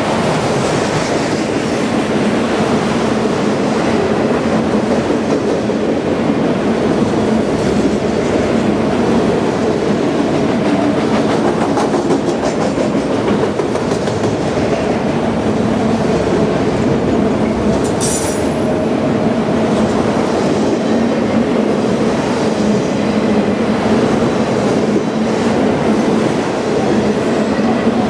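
A train rolling past at close range: a steady, loud rumble of cars with the clickety-clack of wheels over the rail joints, and a short high-pitched burst about eighteen seconds in.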